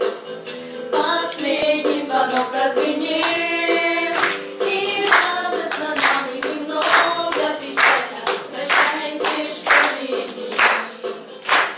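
A group of teenage girls and boys singing a song together, with regular claps on the beat, about one a second, from about four seconds in.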